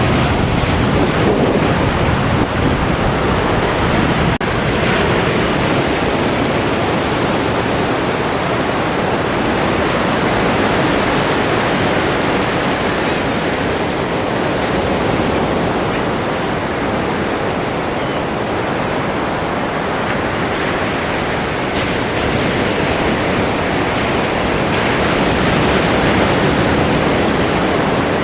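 Ocean waves breaking and washing on a shore, a dense, steady rush of surf that swells and eases slowly.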